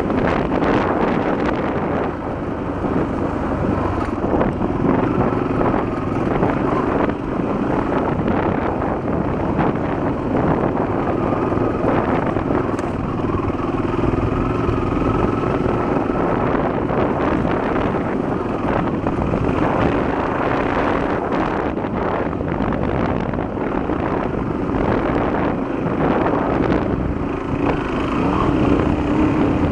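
Honda XL250's single-cylinder four-stroke engine running steadily while the motorcycle is ridden, with wind noise on the microphone.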